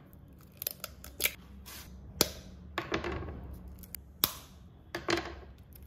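Eggs being cracked one after another by tapping their shells with a knife over a glass bowl: a series of sharp clicks and cracks, the loudest about two and four seconds in.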